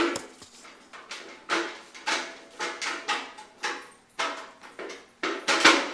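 A child banging on a hard object, a fairly steady beat of about two knocks a second, each dying away quickly, with the loudest knock near the end.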